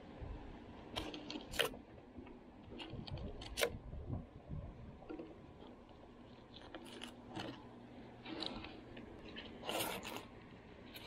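Fillet knife scraping and slicing along a snapper on a cutting board: scattered short scrapes and sharp clicks of the blade and fish against the board, the sharpest about a second and a half in, three and a half seconds in, and near ten seconds.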